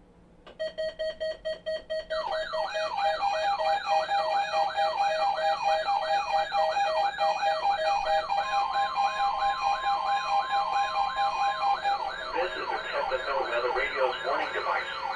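Electronic alert alarm of a weather alert radio: fast beeping, about five beeps a second, for a second and a half, then a loud warbling siren-like tone that sweeps up and down about two and a half times a second over a steady tone. Near the end a voice comes in underneath.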